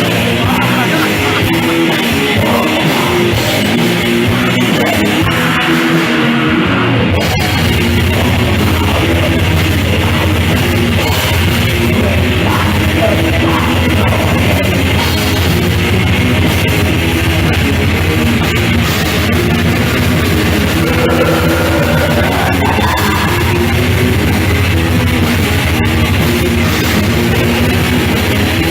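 Black metal band playing live, loud and dense, with electric guitars and drum kit. A heavier low end fills in about seven seconds in.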